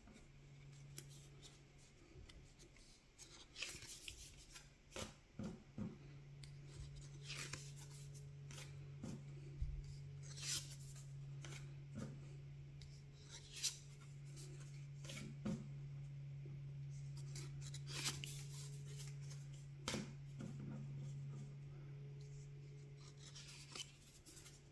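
Magic: The Gathering trading cards being slid one at a time across a stack held in the hand, making faint scattered swishes and snaps of card on card every second or two, over a steady low hum.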